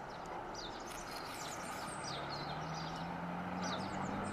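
Outdoor ambience: small birds chirp faintly and repeatedly in short high notes over a steady low hum and background hiss.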